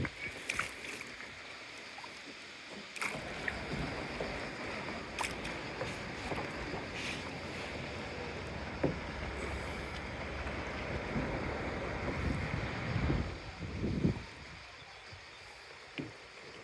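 Seawater sloshing and splashing around a kayak on the move, a steady wash from about three seconds in to about thirteen seconds, with a few short clicks and knocks.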